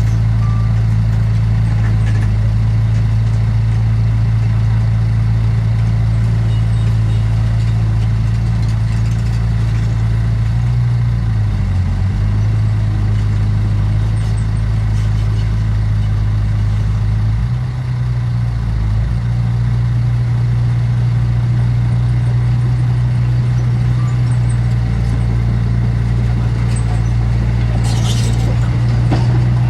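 Heavy diesel engine of earthmoving machinery running at a steady speed, with brief changes in engine speed about 12 seconds in and again around 18 seconds in.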